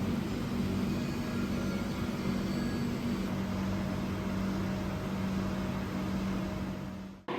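A steady mechanical hum with a rushing noise, cutting off abruptly near the end.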